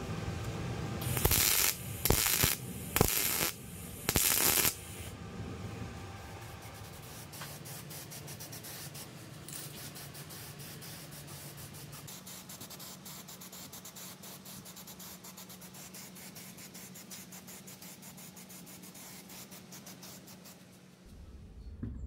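MIG welder laying four short tack welds, each a loud crackling burst of about half a second. Then an aerosol spray-paint can hisses steadily as it coats a steel frame, fading out near the end.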